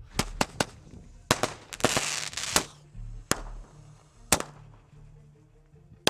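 A string of sharp, irregularly spaced cracks and bangs, with a hissing rush about two seconds in, over a low background hum of music.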